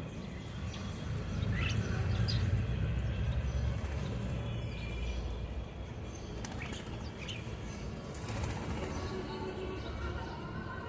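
Birds calling with a few short, rising chirps, scattered singly and in pairs, over flapping wings.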